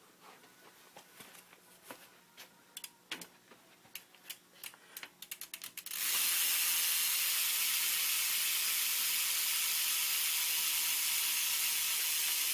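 Primo Pro rear hub on a BMX wheel freewheeling: sparse ratchet clicks that quicken, then from about six seconds in a loud, steady buzz of the pawls as the wheel spins fast.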